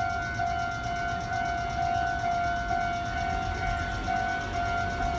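Japanese railway level-crossing alarm ringing: an electronic bell tone repeating evenly about twice a second, over a low rumble.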